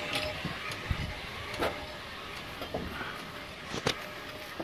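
A faint steady outdoor background broken by a few short knocks and rustles, the sound of a phone being carried and handled while walking.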